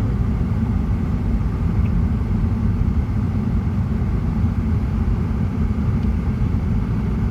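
Steady low road rumble heard from inside a moving car's cabin: tyre and engine noise at cruising speed.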